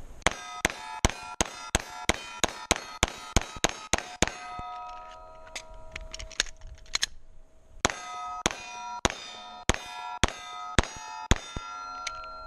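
Glock 17 Gen 3 9 mm pistol fired in rapid strings at steel targets, each hit ringing with a clear metallic ding. A fast run of about a dozen hits comes first, then a short pause with a few fainter strikes, then a second run of about eight.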